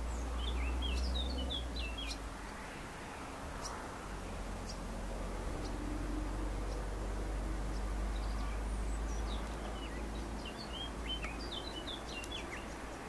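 Small songbirds chirping in two runs of quick, high notes, one near the start and another from about nine to twelve seconds in, over a faint, steady low rumble.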